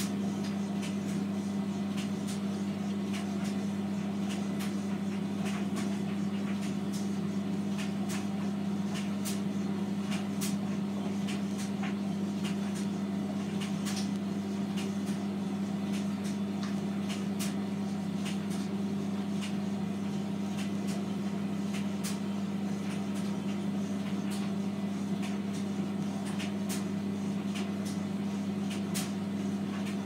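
Hotpoint front-loading washing machine in its wash cycle, its drum turning a towel through soapy water: a steady motor hum with scattered light clicks.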